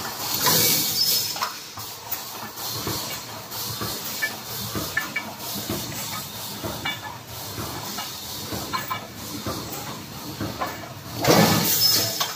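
Automatic welded wire mesh machine running: a steady mechanical clatter with scattered clicks, and loud hissing bursts about half a second in and again near the end.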